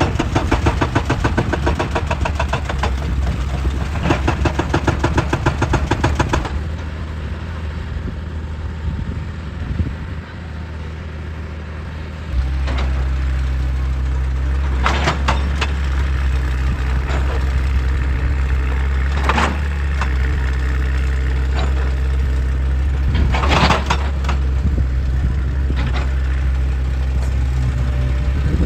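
Excavator working rock: a fast, even hammering for about the first six seconds, then the diesel engine running, picking up load about twelve seconds in. A few loud sharp knocks of rock and steel come later.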